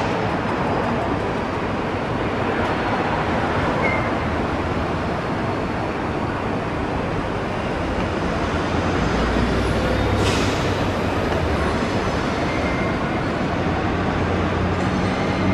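Passenger coaches of a steam-hauled train rolling slowly past on the rails, a steady rumble of wheels on track. A short hiss comes about ten seconds in, with a deeper rumble around it.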